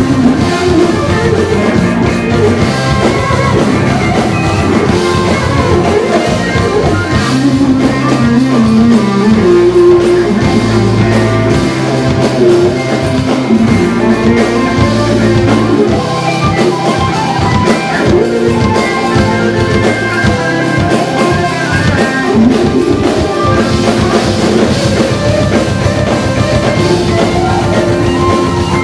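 Fast live instrumental rock tune played by a full band: an Ibanez electric guitar over a drum kit.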